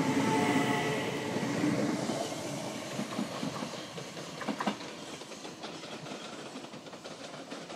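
An 8-car Class 375 Electrostar electric multiple unit accelerating away from the platform. Its whine and rumble fade steadily as it recedes. Wheel clicks over the rail joints come about three to five seconds in.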